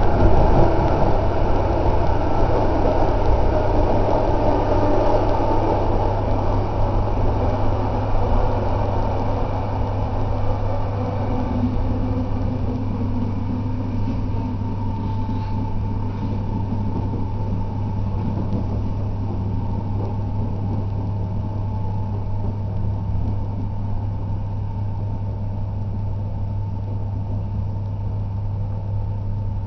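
Electric suburban train running, heard from inside the carriage: a steady rumble of wheels on track with a constant low hum, loudest at first and easing off over the first dozen seconds, then steady.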